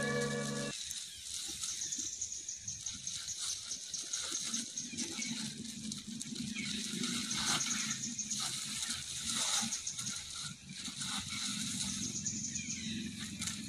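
Background music cuts off within the first second, leaving outdoor ambience: a steady high hiss with scattered soft rustling.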